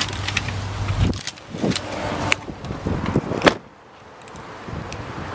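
Knocks and rustling as someone gets out of a 1999 Lexus ES 300, then the car door shut with a loud thump about three and a half seconds in. A low steady hum stops about a second in.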